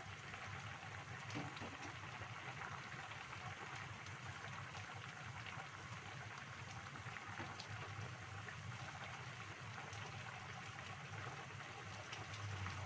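Vegetable soup boiling in a pan on a gas stove: a steady bubbling hiss.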